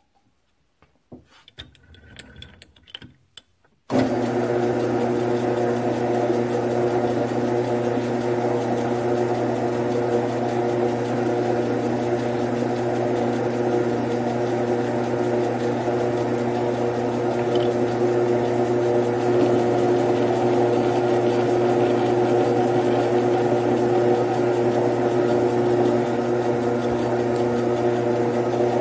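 A few light clicks of handling, then about four seconds in a Grizzly G9972Z 11x26 metal lathe is switched on and runs steadily, a constant motor and gear hum that does not change.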